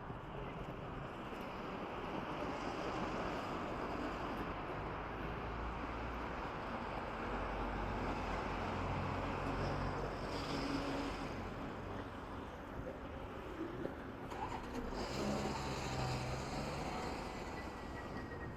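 Outdoor street ambience: a steady wash of traffic noise, with a low engine hum swelling twice as vehicles pass.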